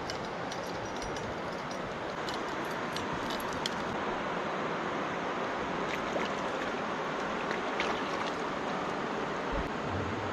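River water rushing steadily over shallow rocky rapids, with a few faint high ticks of small splashes scattered through it.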